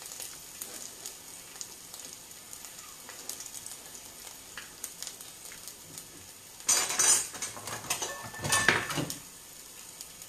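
A garlic-and-onion soffritto sizzling faintly in a frying pan, with light clinks of kitchen handling. About seven to nine seconds in there is a louder clatter and rustle of board, plate and pot as fresh pasta is put into the pot.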